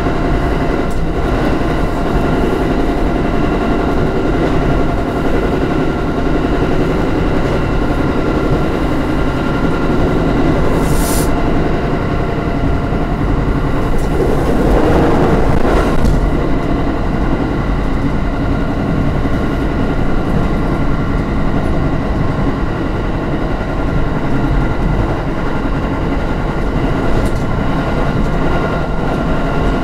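Electric train running at speed, heard from inside the rear cab: steady wheel-and-rail rumble with a fixed machinery whine. A short hiss comes about a third of the way in, and the rumble swells louder around halfway through.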